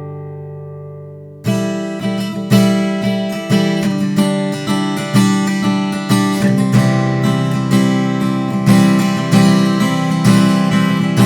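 Martin 00-42 custom acoustic guitar being played: a chord rings and fades, then about a second and a half in the playing resumes with a chord struck roughly twice a second.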